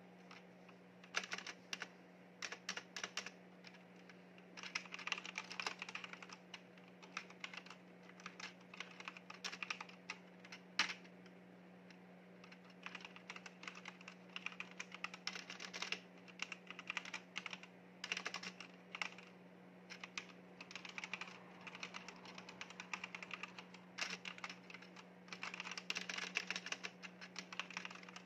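Typing on a backlit mechanical keyboard: quick runs of key clicks broken by short pauses, with one louder single keystroke about eleven seconds in. A faint steady hum sits underneath.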